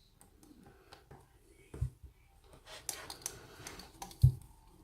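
Faint metallic clicks and scrapes of a hook pick and tension wrench being fitted into the keyway of an American Lock 1100 padlock. Two dull thumps stand out, about two seconds in and near the end.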